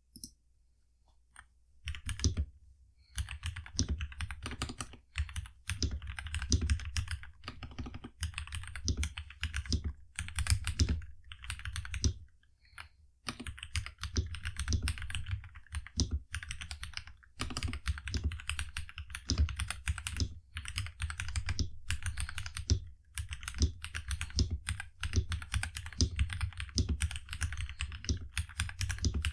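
Typing on a Nuphy Halo65 mechanical keyboard with G Pro Brown 2.0 tactile switches: a couple of single keystrokes, then fast continuous typing from about two seconds in, broken by a few short pauses.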